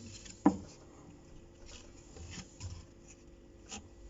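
Drum pulley of an Electrolux Perfectcare 600 top-loading washing machine knocking as it is moved by hand: one sharp knock about half a second in, then a few faint taps. The knock comes from a pulley bolt that has slight play.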